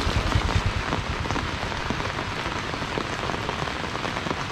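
Steady rain falling on an umbrella held overhead and on a wet concrete road: a dense hiss of fine drop hits. A low rumble in the first second as a motorbike passes close.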